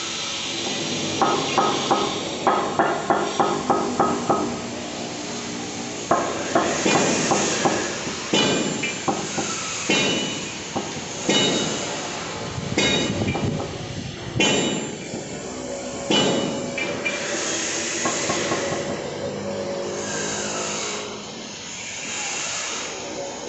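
Hammer taps on granite being set in place: a quick run of about three taps a second, another short run, then slower, spaced single strikes, over a steady hiss.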